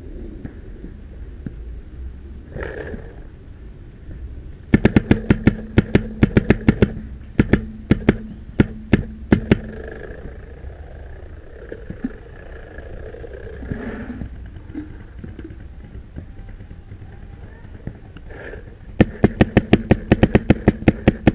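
Paintball marker firing rapid shots, about four a second, in a burst of some five seconds and again in a burst starting near the end, with a steady hum under the first burst.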